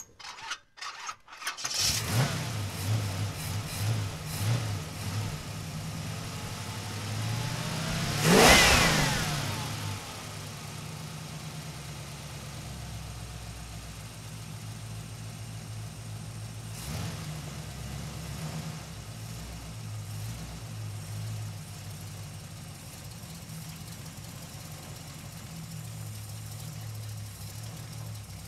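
Car engine cranking with a few clicks, catching about two seconds in and revving in pulses, with one loud rev rising and falling about eight seconds in, then settling into a steady idle.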